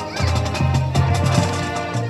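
High school marching band playing, with brass holding chords over changing low notes and drum hits throughout.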